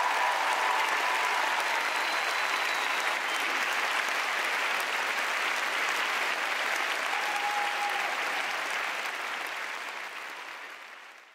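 Large audience applauding steadily, fading out over the last couple of seconds.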